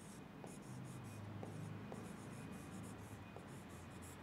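Writing on an interactive display's screen: faint, short scratchy pen strokes in quick irregular runs, with a few light taps of the pen on the glass.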